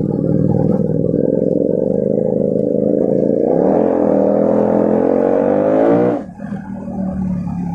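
Sport motorcycle fitted with an aftermarket exhaust, running steadily in low gear and then accelerating with a rising engine note for about two and a half seconds. The note cuts off sharply as the throttle is closed, then the engine runs on lower.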